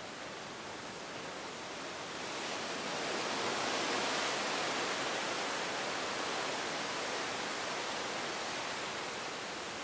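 Steady rush of sea water churning along the side of a moving cruise ship, swelling about two and a half seconds in and easing off toward the end.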